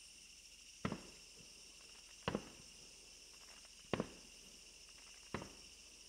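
Fireworks shells bursting: four sharp bangs about a second and a half apart, each with a short echoing tail. A steady high insect trill runs underneath.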